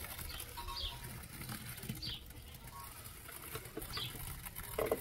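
A small bird calling: short, high, falling notes repeated every one to two seconds, over a low rumble.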